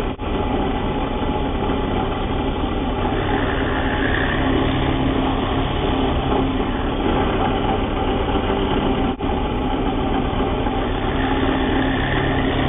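Bench drill press motor running steadily while its twist bit bores into timber to cut a mortise joint.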